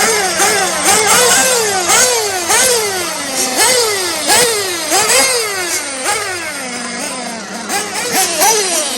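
Electric RC buggies racing: several brushless motors whining, each sweeping sharply up in pitch on acceleration and falling away as the throttle is let off, over and over, roughly every half to one second, with a faint steady hum underneath.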